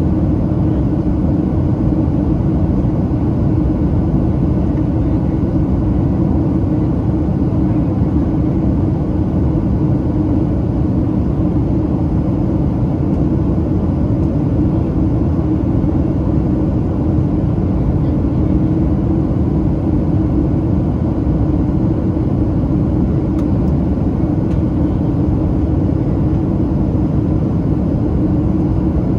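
Steady low rumble inside the cabin of a Boeing 737-700 airliner on approach: airflow and its CFM56-7B turbofan engines, with a steady hum.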